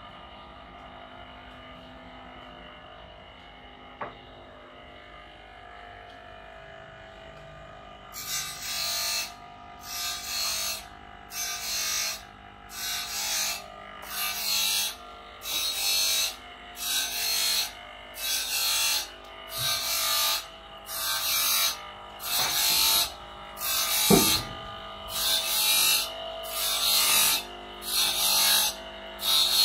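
A steady machine hum with a few steady tones runs throughout. From about eight seconds in, rhythmic rasping strokes of a hand tool on wood or metal come about once a second, each about half a second long and louder than the hum.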